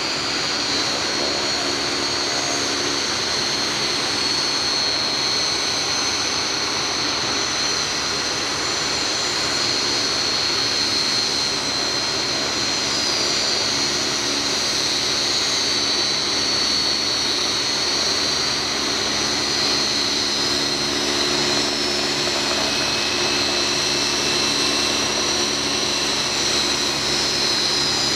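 BAE Hawk T1 jet trainers taxiing, their Rolls-Royce Turbomeca Adour turbofan engines giving a steady high whine over a constant rush.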